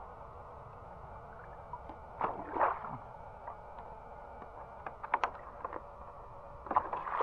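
Water sloshing and splashing as a mesh shrimp trap is lifted and moved through shallow water. There is one splash about two seconds in and another near the end, with a few short sharp clicks in between.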